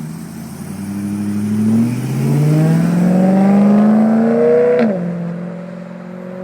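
BMW E9X M3's 4.0-litre V8 exhaust note climbing steadily under acceleration for about five seconds. It then upshifts with a sharp crack, and the pitch drops to a steady lower drone.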